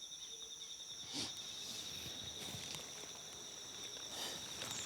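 Forest insects trilling steadily: two high, continuous songs, one with a fast pulse. There is a soft knock or rustle about a second in.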